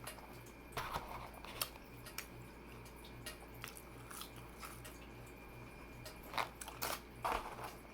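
Close-miked chewing of a meatball marinara sub: soft, wet mouth clicks and smacks scattered through, with a few louder ones near the end.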